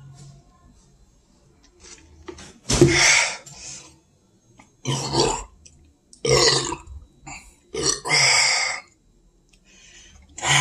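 A man belching loudly four times, one to two seconds apart, starting nearly three seconds in. The belches come just after he has chugged a carbonated malt drink.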